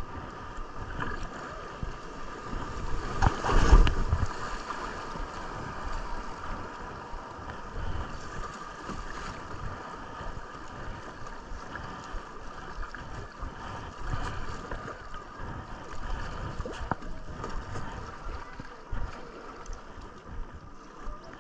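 River water running and splashing around a kayak, with wind noise. A louder rush comes about three and a half seconds in.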